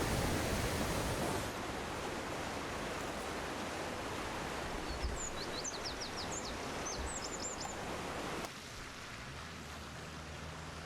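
Rushing floodwater, a steady noise that changes abruptly twice as the shots cut. A bird sings a short phrase of high chirps midway. After the last cut the rushing gives way to a quieter, low steady hum.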